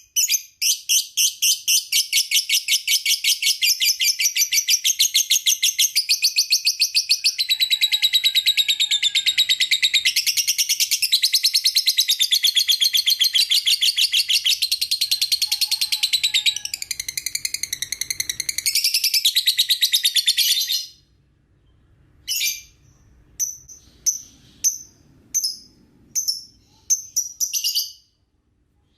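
Lovebird singing a long, fast, unbroken chattering trill of high repeated chirps for about twenty seconds, then breaking off into a few short bursts of chirps.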